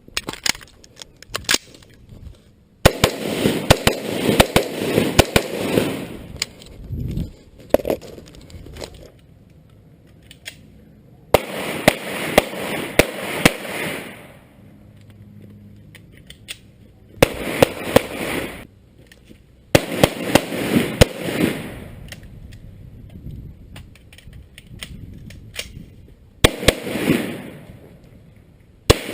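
Firearm shooting: about five strings of rapid gunshots, several shots in quick succession each, with echo after the shots and pauses of a few seconds between strings.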